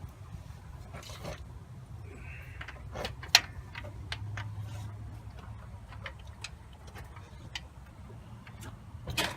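Irregular sharp metallic clicks and taps of new lifters being handled and slid into the lifter bores of a V8 engine block, one louder click about three and a half seconds in, over a low steady hum.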